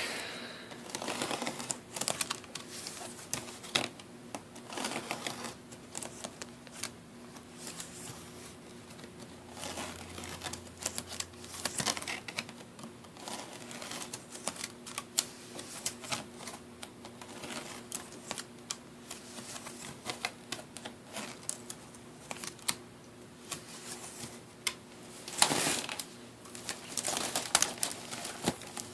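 Fingers tapping and scratching on a wicker picnic basket, an irregular run of close, sharp clicks and taps, with a denser flurry near the end.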